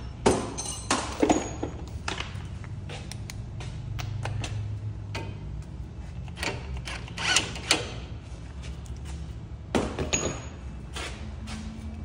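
Irregular metallic clanks and knocks of tools and parts being handled during a car strut job, over a steady low hum.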